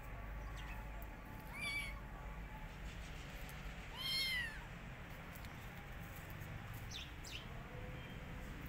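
Kitten meowing twice: a short high meow, then a longer, louder meow that rises and falls in pitch.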